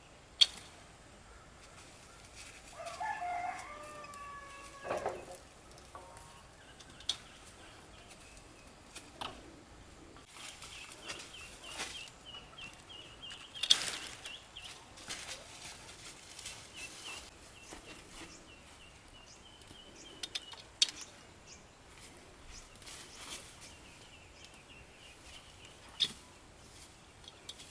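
A rooster crows once, one pitched call of about a second and a half. Scattered sharp clicks and knocks come through the rest, and a fast high trill runs through the middle.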